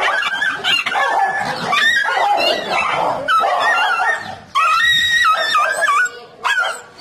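A German shepherd-type dog and a black dog fighting, with a string of high, wavering yelps and cries that are loudest and most warbling from about four and a half to six seconds in.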